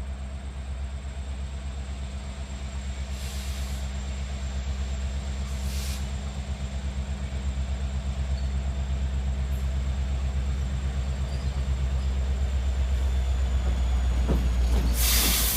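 Diesel locomotive engine running with a steady, pulsing low throb that slowly grows louder.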